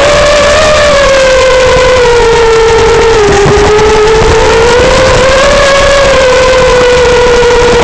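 Loud, steady whine of the iFlight Nazgul5 FPV quadcopter's motors and propellers in flight. The pitch drifts gently up and down with the throttle.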